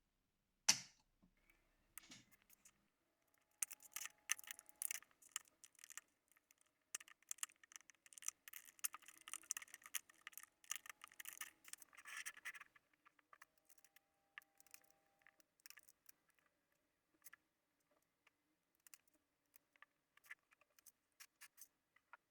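Small clicks, ticks and scratches of hands handling a laptop's parts during a RAM upgrade. One sharp click comes about a second in, then a dense run of scratching and clicking, thinning out later. Short faint steady tones come and go three times.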